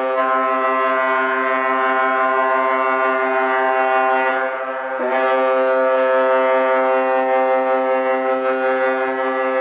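Cruise ship's horn sounding long, steady, deep blasts: one blast fades briefly about halfway through, and a second starts at once.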